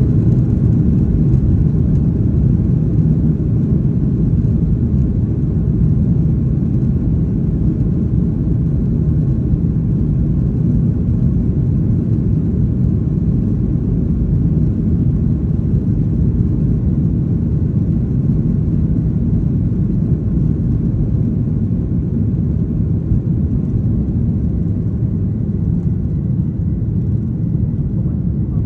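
Boeing 737-800 on its takeoff roll into liftoff, heard inside the cabin over the wing. Its CFM56-7B engines run at takeoff thrust, giving a steady low rumble with a whir above it.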